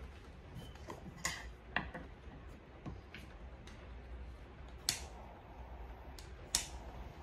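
Clicks and knocks of small objects being handled on a wooden desk as the lid comes off a plastic tub and is set down, over a low steady hum. The sharpest clicks come about a second in, just under two seconds in, near five seconds and near the end.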